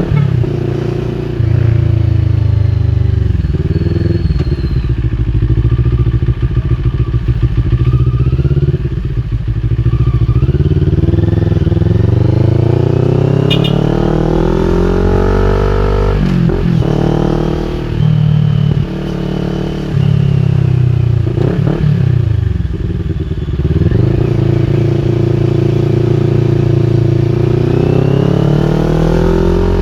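CFMOTO NK400's 400 cc parallel-twin engine through an Akrapovic full-system exhaust, riding on the road. The revs climb and drop again and again as it accelerates through the gears and slows, with a stuttering burble a few seconds in as the revs fall.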